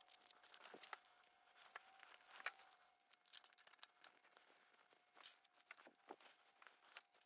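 Near silence broken by faint scattered clicks and rustles of hands working double-sided fabric tape onto a polished metal flange and seating a rubber bellows.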